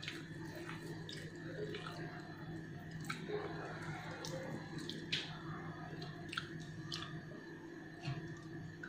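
Close-up mouth sounds of a man chewing a mouthful of rendang beef and rice, with irregular small clicks and smacks of lips and tongue. A steady low hum runs underneath.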